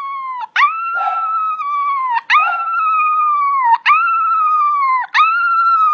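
A dog howling in long, high, drawn-out notes, about four in a row with short breaks between them; each note drops in pitch at its end.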